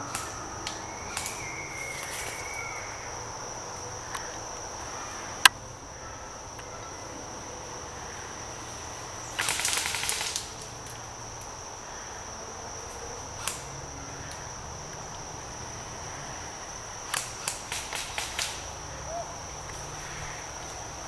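Airsoft guns firing: scattered single sharp snaps, with one loud shot about five seconds in and a quick string of shots near the end. A steady high insect drone runs underneath.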